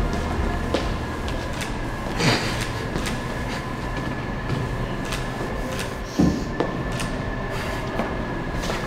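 Quiet room sounds without music: soft rustles and small knocks, a swish about two seconds in and a thump about six seconds in, over a faint steady high whine.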